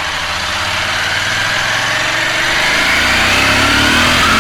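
Benelli TRK 502's parallel-twin engine running under way, its pitch rising gradually as the bike accelerates.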